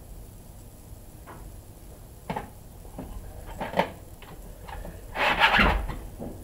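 Light handling noises while working on the engine: a few faint clicks and knocks, then a short scraping rustle about five seconds in, the loudest sound.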